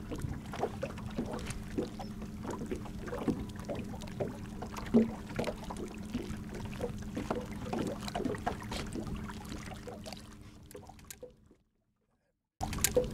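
Boat motor humming steadily at a low, even pitch, with small clicks and knocks of fish and tackle being handled in an aluminium boat. The sound fades and cuts to dead silence for about a second near the end, then returns.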